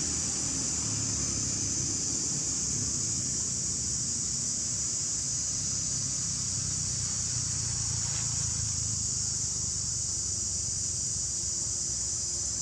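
Steady, unbroken high-pitched insect chorus, over a low background rumble.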